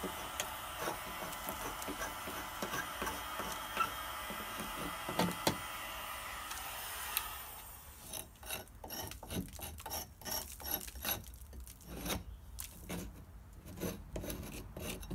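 A 2000 W electric heat gun blowing steadily, switched off about seven and a half seconds in. After that, a hand pull scraper rasps in short, irregular strokes, pulling heat-softened paint off a wooden window sill.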